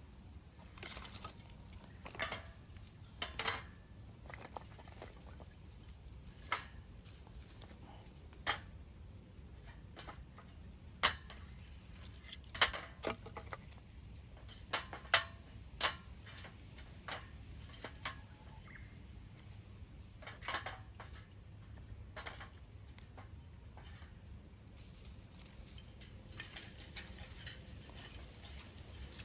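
Irregular sharp clinks, knocks and rustling of camp gear and firewood being handled around a metal fire stand, with the loudest knocks bunched near the middle.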